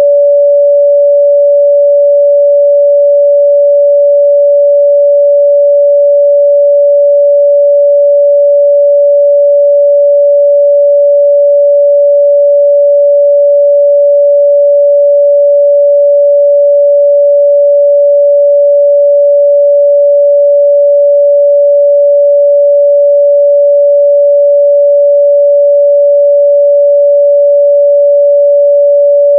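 Continuous 574 Hz pure sine-wave test tone, a steady single pitch held at constant loudness.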